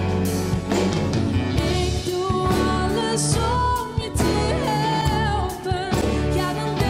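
A woman singing a Dutch-language worship song into a microphone, backed by a live band with drums, bass and guitar.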